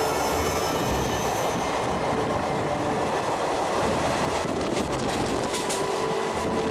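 Passenger train running along the track, heard from on board: a steady rumble and rattle of wheels on rail with faint squealing tones, and a run of sharp clicks a little after halfway.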